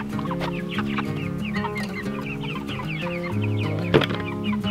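Chickens clucking continuously from inside a chicken tractor: Jersey Giant hens, in many short, quick calls. There is a single sharp knock about four seconds in, and background music runs underneath.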